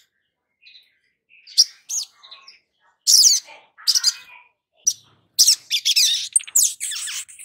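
Olive-backed sunbird (sogon) calling: short, sharp, high-pitched chirps and quick trills, a few sparse notes at first, then coming in rapid bursts from about three seconds in.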